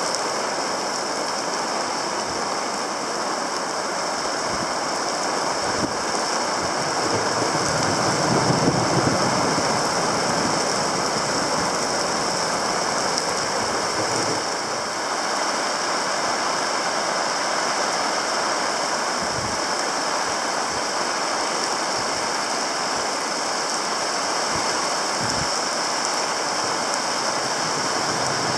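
Steady hiss of rain falling, with wind. A couple of brief low thumps from wind on the microphone come late on.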